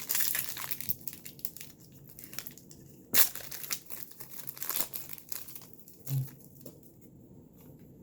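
Trading-card pack wrapper crinkling and rustling as cards are handled and flipped through, in irregular bursts, the sharpest about three seconds in.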